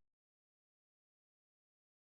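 Silence: the audio track has ended.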